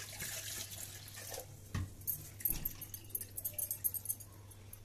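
Water sloshing in a stainless-steel mixer-grinder jar as it is rinsed of ground masala, with small metallic clinks and knocks against the steel.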